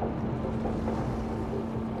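Boat engine droning steadily, with wind and sea noise around it.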